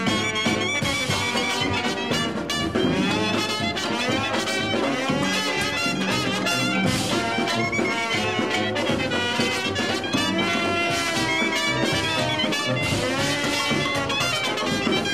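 Instrumental jazz-style background music led by brass, playing continuously without singing.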